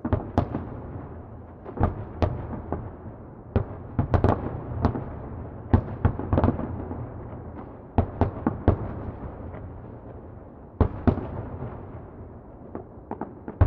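Fireworks exploding at a distance: an irregular run of sharp bangs, some in quick clusters, over a steady low rumble.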